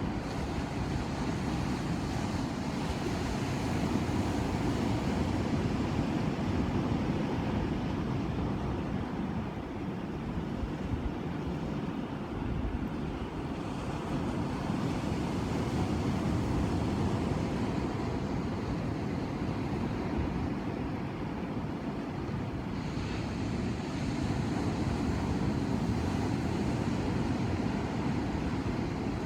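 Ocean surf: waves breaking and washing in, a steady low rush that swells and eases slowly every ten seconds or so, with a brighter hiss coming in about three quarters of the way through.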